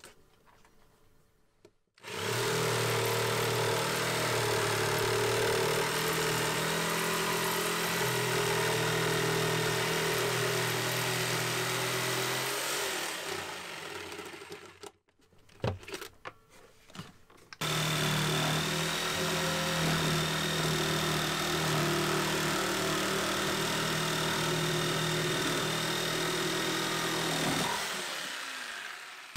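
Black+Decker jigsaw cutting through a 3/4-inch-thick bulkhead. The saw starts about two seconds in, runs steadily for about ten seconds, then winds down. A few knocks follow as the saw is repositioned, then it runs a second long stretch and winds down near the end.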